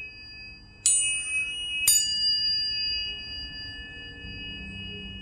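Planetary tuning forks struck twice, about a second apart, each leaving clear high tones ringing on and slowly fading.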